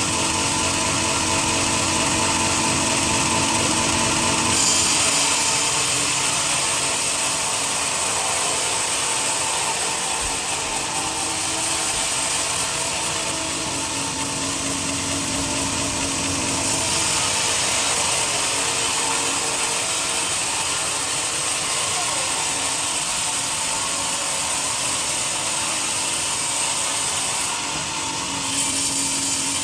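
Sawmill saw running steadily through a teak log, a continuous machine whine with hissing cutting noise that shifts in tone a few times as the cut goes on.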